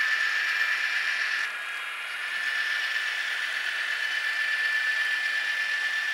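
HO scale model diesel locomotives rolling past, their small electric motors and gears giving a steady high whine over rolling wheel noise on the rails. The whine dips briefly about a second and a half in, then comes back.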